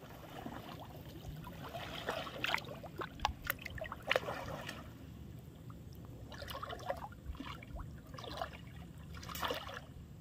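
Shallow water trickling and splashing in small, irregular bursts, with a few sharp clicks in between.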